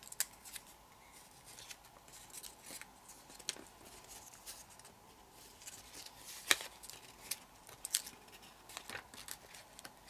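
Origami paper being folded and creased by fingers: faint rustling with scattered sharp crackles and clicks, the loudest about six and a half seconds in.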